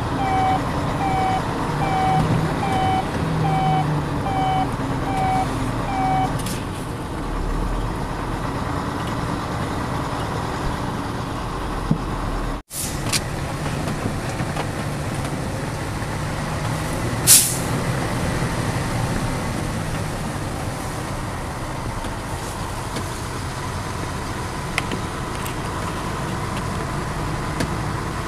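Heavy truck engine running steadily. For the first six seconds a beep repeats about twice a second, and about two-thirds of the way through there is one short, sharp hiss of air, typical of an air brake.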